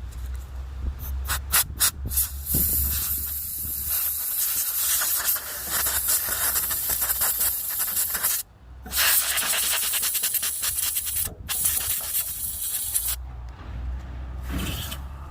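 Can of electronics duster (compressed gas) spraying into a corroded electrical connector to blow it clean. A few short puffs come first, then long hissing blasts of several seconds each with brief breaks between them.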